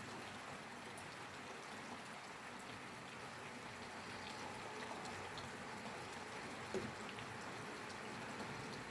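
Steady rainfall: an even hiss of rain with scattered faint drop ticks, and one louder drip about two-thirds of the way through.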